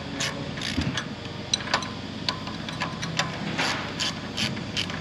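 Ratchet spanner tightening bolts on a trailer hitch's brake lever mount, its pawl clicking in short runs about twice a second, over a steady low hum.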